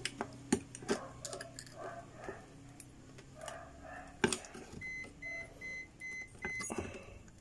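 Small clicks and taps of a hand tool working at a Sharp LED TV's main circuit board, with one sharp knock about four seconds in. Just after it, six short high electronic beeps sound evenly spaced, a few per second.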